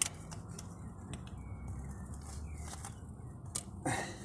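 A few faint metal clicks and handling noises as a ring spanner is fitted onto a diesel engine's glow plug, over a low steady hum.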